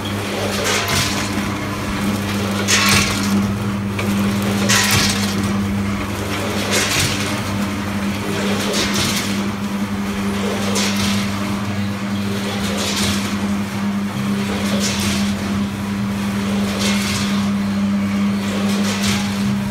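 Fully automatic weighing and packing machine (AC 10 multihead weigher with bagger) running: a steady mechanical hum with a short rushing burst about every two seconds as it cycles through its weigh-and-pack operations.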